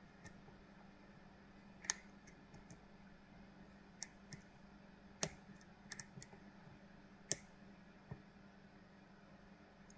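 Lock pick and tension tool working the pins of a Kale Kilit 164 BNE lock cylinder, giving about ten faint, irregular metallic clicks, the loudest about two, five and seven seconds in. A low steady hum lies behind.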